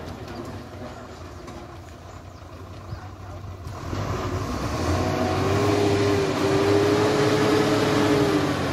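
Heavy goods lorry's diesel engine running under load, growing louder about halfway through with a steady whine over the rumble that sags in pitch near the end.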